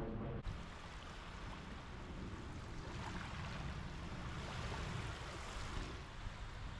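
A passing airliner's drone cuts off about half a second in, giving way to small waves washing in over shallow water onto a sandy beach, a steady wash with a low rumble underneath.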